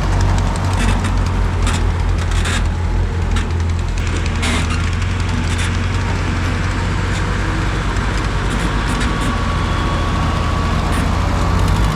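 An engine running steadily with a low drone, with sharp knocks and rattles over it, most of them in the first few seconds.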